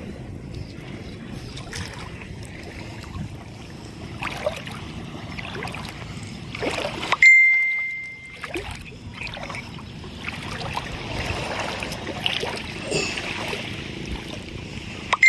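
Wind and waves washing on a beach. About seven seconds in, and again at the very end, a sharp click with a single bright ding rings for about a second while the surf sound drops away.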